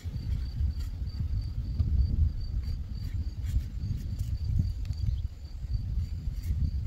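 A cricket chirping in one high tone, about three chirps a second, over a louder low rumble of wind on the microphone.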